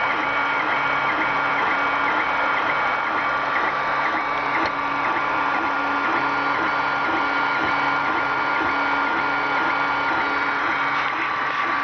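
Creality Ender 3 3D printer printing: its stepper motors whine in short, evenly repeating back-and-forth moves, a few a second, over a steady cooling-fan hum.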